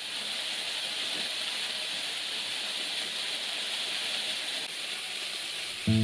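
Chicken pieces sizzling steadily in a frying pan over a gas flame.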